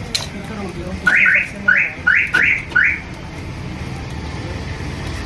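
Six quick electronic chirps, each rising in pitch, within about two seconds from a car's remote central-locking alarm siren as the freshly installed lock is tested. There are a few sharp clicks around them.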